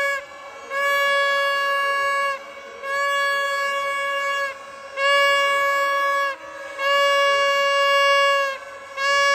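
A horn sounding a string of long blasts at one steady pitch, each lasting about a second and a half with short pauses between, five or so in a row.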